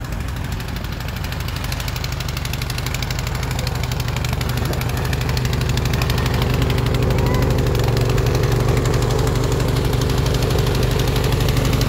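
Snowblower engine running steadily, slowly growing louder.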